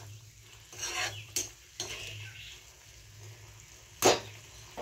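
Steel spoon stirring a bubbling paneer curry in a kadhai, scraping against the pan in a few quick strokes, with one loud sharp knock of the spoon against the pan about four seconds in.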